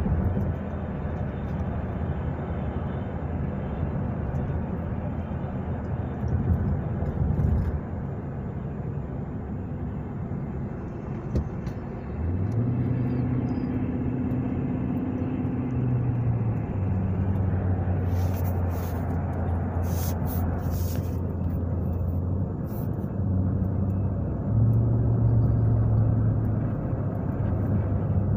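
Car engine and road noise from inside a moving car's cabin. About twelve seconds in, the engine note rises as the car picks up speed, then holds steady. There are a few brief clicks past the middle.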